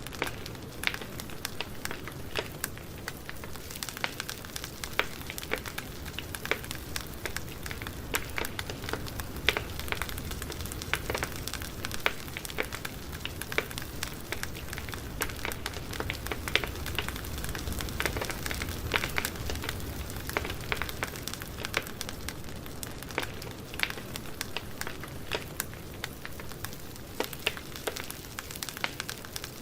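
Campfire burning: a steady low rumble of flames with frequent irregular crackles and pops from the burning wood.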